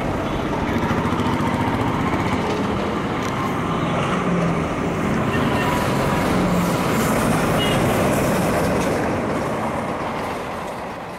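Passenger train hauled by a WDM-class diesel locomotive running along the track: a steady rumble of engine and wheels that fades away over the last couple of seconds.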